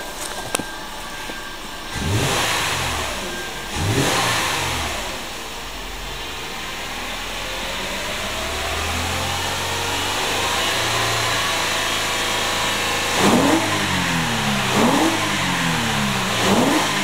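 2013 Toyota Aurion's 3.5-litre V6 being revved in park, heard from inside the cabin. Two quick blips early on are followed by a slower climb and fall in revs, then three sharp blips near the end, each dropping back toward idle.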